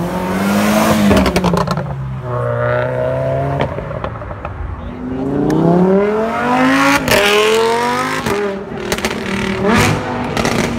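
Sports-car engines accelerating hard past, the engine note climbing in pitch twice. The second pull, about five to seven seconds in, is a Lamborghini Huracán's V10, followed by several sharp cracks.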